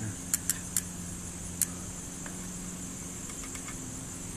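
A few short, sharp metallic clicks, mostly in the first couple of seconds: a spoke wrench being fitted onto a bicycle wheel's spoke nipples. Under them run a steady low hum and a high insect buzz.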